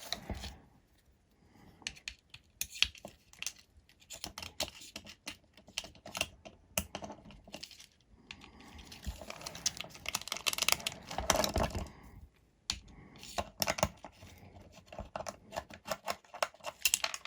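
Irregular small clicks, taps and scrapes of hand tools and screws against a hexacopter's frame parts as its arm mount is unscrewed and taken apart, busiest a little past the middle.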